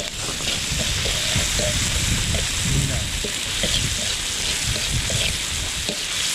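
Cuttlefish frying in hot oil: a steady sizzle with many small scattered pops and crackles.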